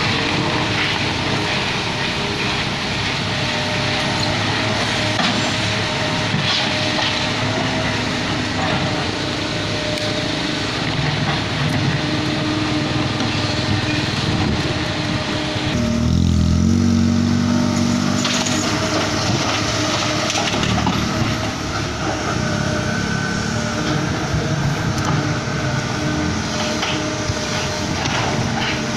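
Kobelco SK75 excavator's diesel engine running steadily under load while digging a trench, with occasional knocks of the bucket in soil and stones. About halfway through, a deeper engine note swells for about two seconds.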